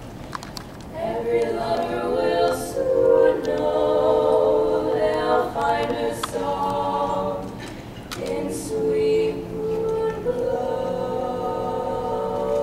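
Women's barbershop quartet singing a cappella in four-part close harmony. The voices come in about a second in and go on in phrases, with a short break partway through.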